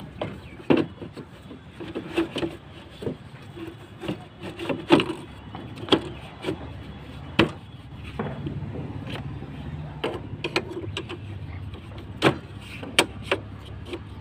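Hard plastic air filter housing of a Mahindra Bolero being pushed and worked onto its intake hose by hand: irregular clicks, knocks and scrapes of plastic, a few of them sharp and loud.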